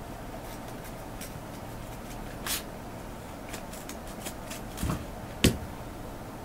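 Kittens' paws scrabbling and patting on a pet pad: scattered light rustles and taps, with a soft thump just before five seconds and a single sharp knock about five and a half seconds in.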